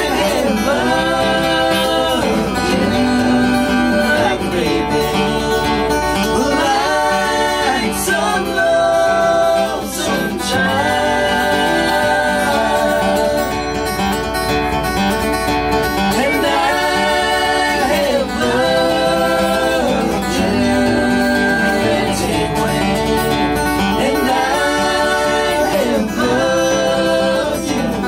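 Live acoustic guitar with several voices singing in close harmony, holding and sliding between sustained chords.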